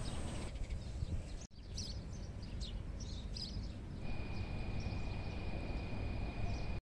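Steady low background noise with faint, scattered bird chirps. It drops out briefly about one and a half seconds in, a thin steady tone joins about four seconds in, and the sound cuts off suddenly at the end.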